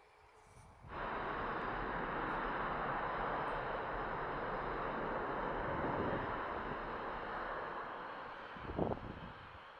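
Boeing 737 MAX 8's CFM LEAP-1B jet engines at takeoff thrust: a steady, loud roar that comes in abruptly about a second in and eases off near the end, with a brief thump just before it fades.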